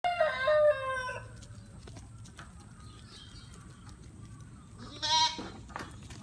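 Tokara goats bleating: one call right at the start that steps down in pitch over about a second, and a shorter, quavering bleat about five seconds in.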